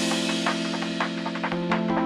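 Background music: a held low chord, changing about three quarters of the way through, under quick, light percussion taps several a second.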